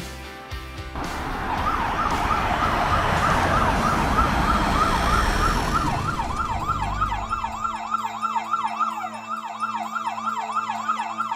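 Emergency-vehicle siren wailing in a fast, repeating rise and fall, about three sweeps a second, starting about a second in. A low rumble underneath fades out about seven seconds in.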